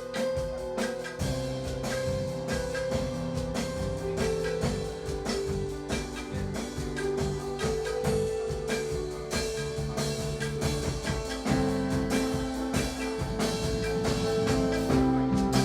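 Live gospel praise band playing an instrumental passage: drum kit keeping a steady beat under bass and held keyboard notes, with no singing.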